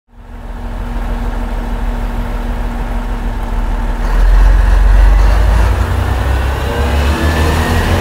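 Komatsu SA6D140HE-2 six-cylinder turbodiesel of a KiHa E120 diesel railcar idling steadily, then about halfway through opening up to pull away, much louder, with a whine that rises in pitch.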